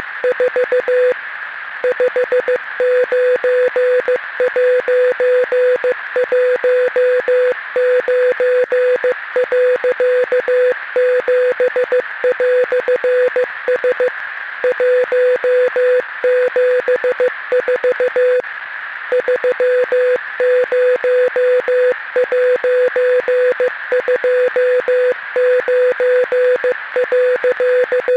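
Morse code sent as a single steady beeping tone, keyed on and off in rapid dots and dashes with brief pauses between groups, over a steady radio hiss.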